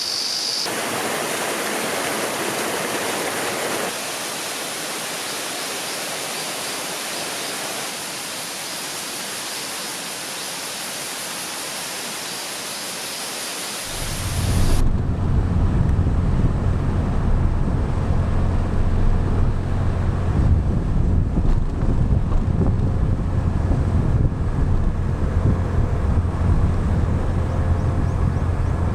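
Rushing water of a stream, an even hiss, for about fourteen seconds; then an abrupt change to a small scooter being ridden: a steady low engine hum with wind rumbling on the microphone.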